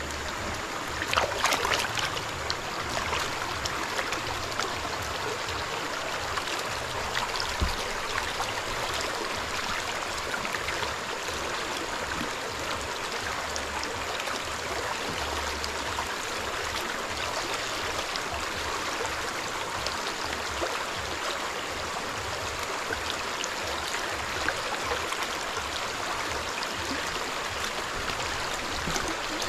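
Shallow stream water running and sloshing as a large wooden gold pan is swirled and dipped in it to wash the concentrate. About a second in there are a few sharp clicks of pebbles being raked off the pan.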